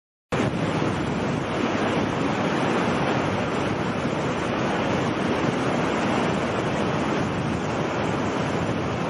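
Steady rushing of water with wind, starting suddenly a moment in and holding at an even level.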